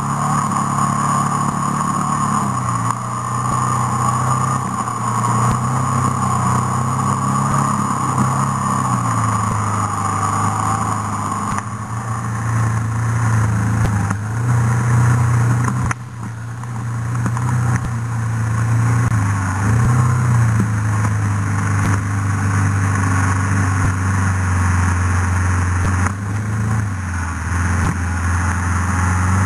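On-board sound of a vehicle engine pulling along a wet dirt track, its pitch stepping up and down every few seconds as the revs change, with a brief easing off about halfway through.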